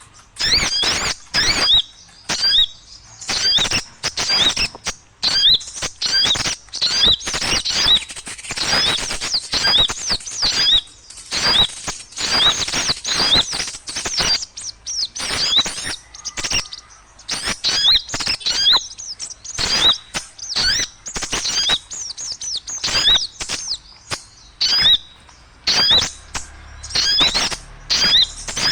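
Many small birds chirping and chattering at once, a dense, unbroken run of quick high chirps with sharp clicks. This is a noisy small-bird recording of the kind used as a lure to draw wild birds in.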